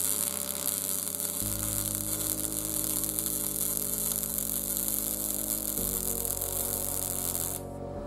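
MIG welding arc crackling and hissing steadily as a bead is laid on steel, cutting off shortly before the end. Underneath, background music holds low sustained notes that change twice.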